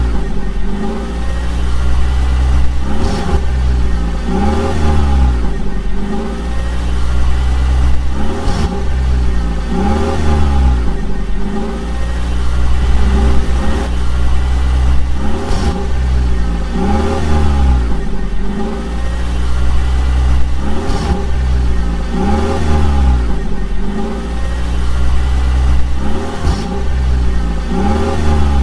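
Vehicle engine revving up and down in an even cycle that repeats roughly every two seconds over a steady low rumble, like a looped engine sound effect.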